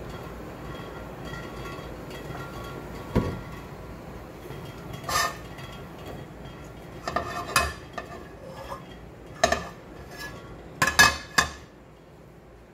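Frying pan clinking and knocking against the stove as it is handled and tilted to spread oil, a few sharp knocks with the loudest cluster near the end.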